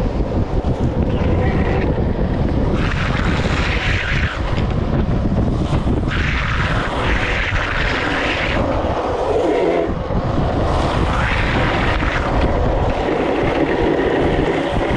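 Downhill longboard wheels rumbling at speed on rough asphalt, with wind rushing over the microphone. Several times a higher hiss swells for a second or two and then drops off: urethane wheels sliding sideways across the asphalt.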